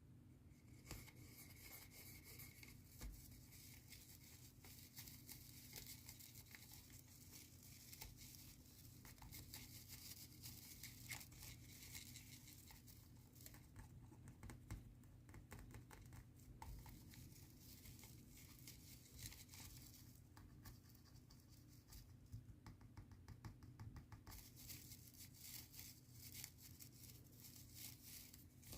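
Quiet, close-miked scratching on a Christmas tree: a dense crackly rasp full of small ticks, easing off briefly twice.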